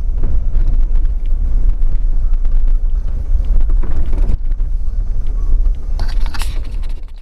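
Jeep Wrangler driving on a dirt trail: a loud, steady low rumble of the vehicle with wind buffeting the microphone and occasional knocks from the rough road. The sound fades out near the end.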